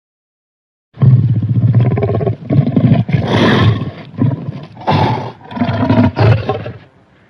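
Tyrannosaurus rex roar sound effect from an animated film: a long, loud roar begins about a second in, followed by several shorter roars that die away near the end.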